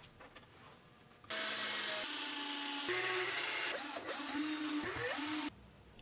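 A small electric power tool starts about a second in and runs for about four seconds, its motor pitch shifting and rising in places, then stops abruptly.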